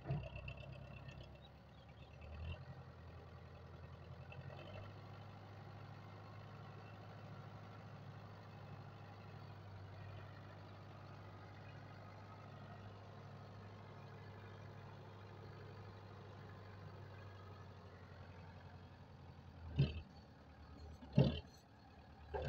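Belarus tractor's diesel engine running steadily while its hydraulics tip the loaded trailer bed. Three loud short bursts come near the end.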